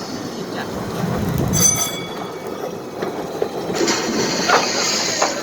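Small mine railroad train rolling along its track, the wheels rattling and clanking on the rails, with a brief high squeal about a second and a half in.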